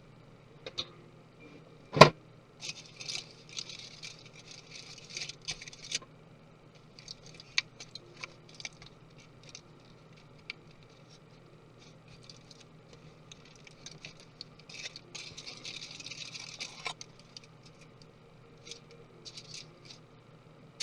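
Small tools and parts being handled during the disassembly of a MacBook Pro laptop: a sharp knock about two seconds in, then spells of light scraping, clicking and rattling.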